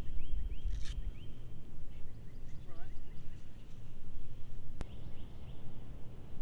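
Birds chirping: a run of quick, repeated short chirps, with a few lower chirps about three seconds in, over a low wind rumble on the microphone. A single sharp click sounds near the end.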